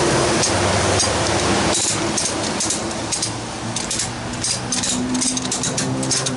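Hand ratchet on a flatbed cargo strap clicking as it is cranked tight, a quick uneven run of sharp clicks starting about two seconds in. Under it, a steady noise with a low hum.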